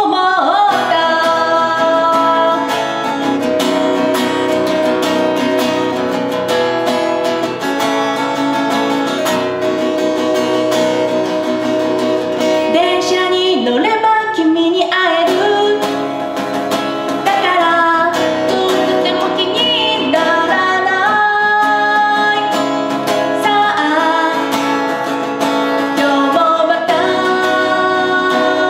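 A woman singing a song, holding long notes, while accompanying herself on a strummed steel-string acoustic guitar.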